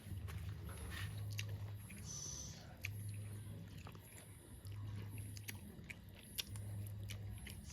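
People chewing and biting food, with scattered small clicks. A low hum comes and goes underneath.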